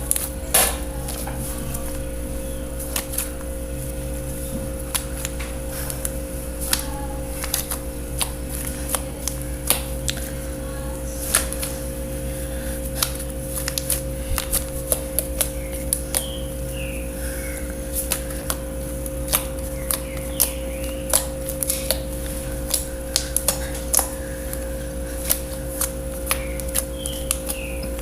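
Slime being squeezed and worked by hand, making irregular sticky clicks and small pops, over a steady hum.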